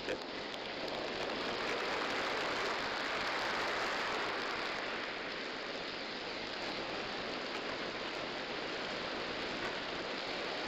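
Steady crowd noise from a large arena audience, an even hubbub that swells a little a few seconds in.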